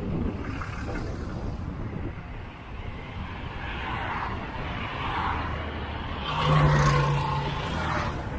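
Wind and road rumble on the microphone of a moving bicycle, with a motor vehicle passing close by about six seconds in, its engine hum the loudest sound for a couple of seconds.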